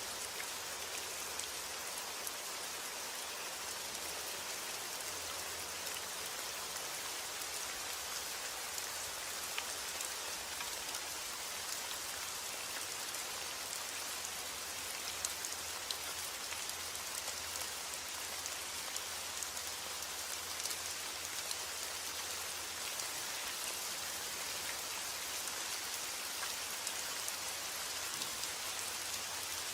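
Steady rain falling, with a dense patter of individual drops ticking on a surface.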